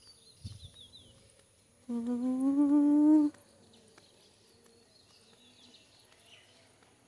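A person's voice humming one held note for about a second and a half, its pitch drifting slowly upward. Faint bird chirps come before and after it.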